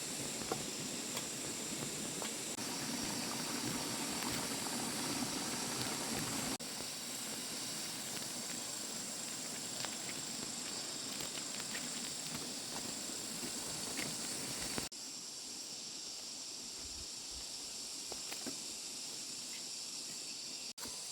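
Steady outdoor background hiss with a constant high-pitched drone and a few faint scattered clicks; its tone changes abruptly about six and fifteen seconds in.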